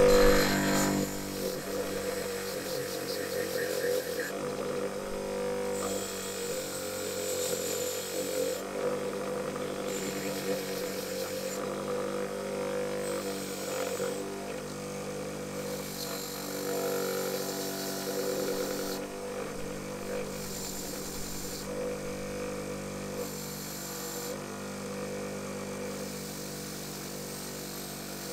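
Electric wire wheel coming up to speed at the start, then running steadily while the rusty steel tang of a chisel is pressed against it on and off, the spinning wires scrubbing with a scratchy noise that comes and goes every second or two as the rust is brushed off.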